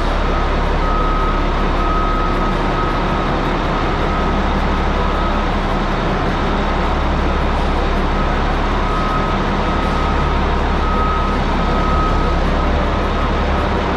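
Caterpillar 627G wheel tractor-scraper's diesel engines running steadily, with a thin high tone coming and going over the low engine note.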